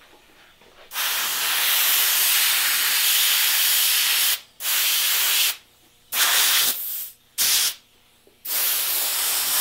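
Airbrush spraying thinned acrylic paint in hissing bursts of air. One long burst of about three seconds comes first, then four shorter ones with pauses between.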